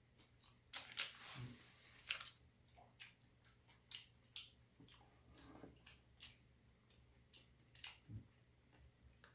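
Faint eating sounds: scattered clicks and taps of chopsticks on plastic takeout trays, a longer rustle about a second in, and chewing.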